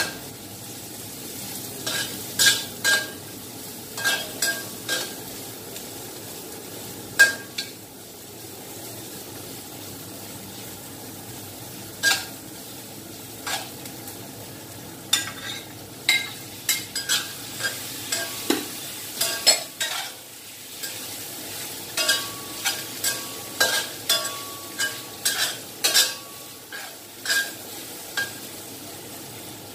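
Stir-frying in a steel wok: a steady sizzle of hot oil under repeated, irregular clanks and scrapes of a metal ladle against the pan, most frequent in the second half.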